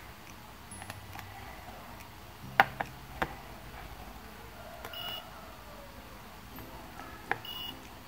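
Small piezo buzzer in a BC547 infrared-detector circuit sounding the infrared pulses of a TV/air-conditioner remote as its buttons are pressed. There are a few sharp clicks, the loudest about two and a half and seven seconds in, and brief high beeps about five and seven and a half seconds in.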